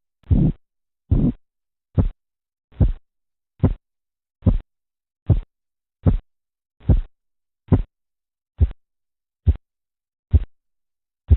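Korotkoff sounds heard through a stethoscope over an artery beneath a deflating blood pressure cuff: a steady pulse of thumps, a little over one a second. The first few beats are longer and rougher; the later ones are short, sharp taps.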